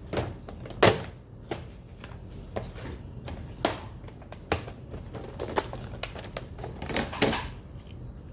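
Irregular small clicks and taps of rummaging through small containers of jewelry findings such as jump rings, the loudest about a second in.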